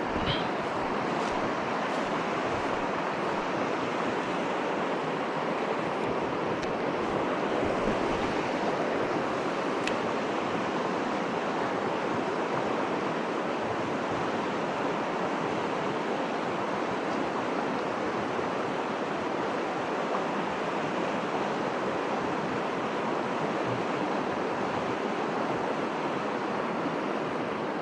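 Fast mountain river running high, a steady, even rushing of water over rocks.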